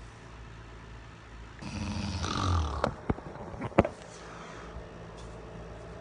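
A man snoring: one loud snore starting about a second and a half in and lasting about a second, followed by a few short sharp clicks.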